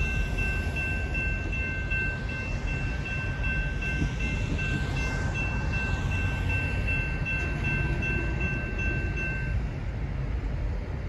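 A bell ringing steadily with a clear, high ring that stops near the end, over the low rumble of a slow-moving GP38-2 diesel locomotive.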